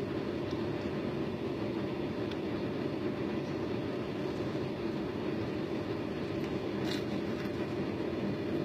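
Steady rumbling noise like the inside of a moving vehicle, with one short sharp sound about seven seconds in.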